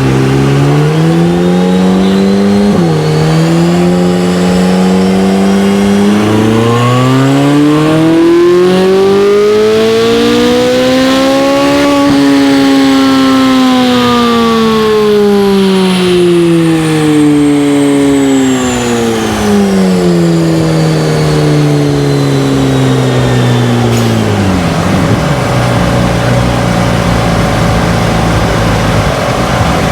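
Chevrolet C8 Corvette Z06's flat-plane-crank 5.5-litre V8 making a full-throttle pull on a chassis dyno. It revs up through a couple of gear changes in the first few seconds, climbs steadily to a peak about twelve seconds in, then winds back down as the rollers slow, settling to idle near the end.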